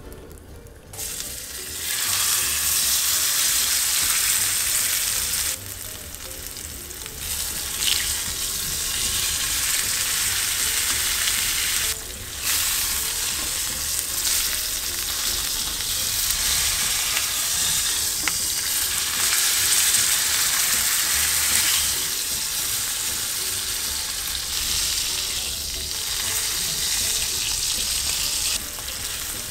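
Bone-in ribeye searing in hot rapeseed oil in a cast-iron skillet, a steady spitting sizzle. The sizzle starts about a second in and drops away briefly twice.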